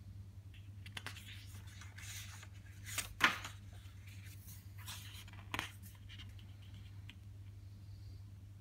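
A stiff photobook page being turned and smoothed flat by hand: a papery swish that is loudest about three seconds in, then two softer rubs a couple of seconds later.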